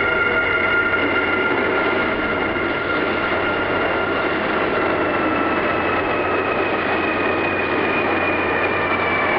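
Kintetsu electric train running, with a high whine of several steady tones over the rolling noise, slowly falling in pitch.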